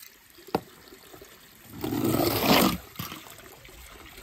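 A sharp click, then about a second later a short rush and splash of water lasting about a second.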